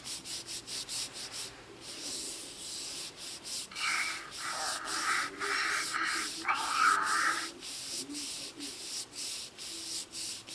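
Hands rubbing and stroking the hard plastic shell of a Hatchimal toy egg held right against the microphone: a rapid run of scraping strokes. A higher, steadier sound joins in for a few seconds around the middle.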